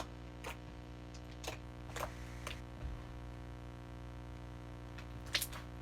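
Slime being squished and worked by hand, giving scattered sharp clicks and pops, the loudest near the end, over a steady low hum.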